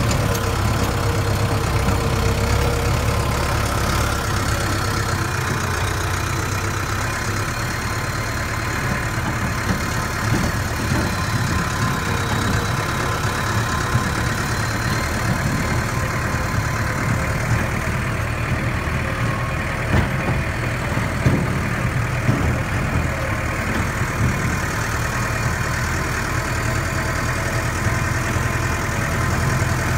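An engine idling steadily: a low, even hum.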